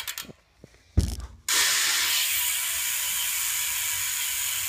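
BMX rear hub (a Profile Elite) freewheeling as the back wheel coasts: a dense, continuous ratcheting buzz from the pawls. It starts suddenly about a second and a half in, after a few clicks and a knock, and slowly fades.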